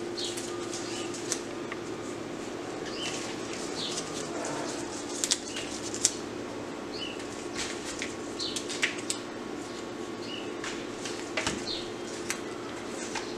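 Rustling and sharp irregular clicks from rose stems and leaves being handled and pushed into floral foam, over a steady low hum, with short bird chirps every second or two.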